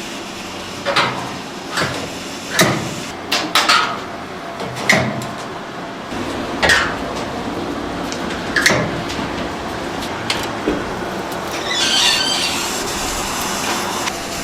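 Irregular knocks and clatter of kitchen work over a steady background noise, with a brief hiss about twelve seconds in.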